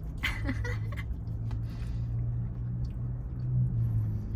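Chewing and biting into food up close, with a few short wet clicks near the start, over a steady low hum.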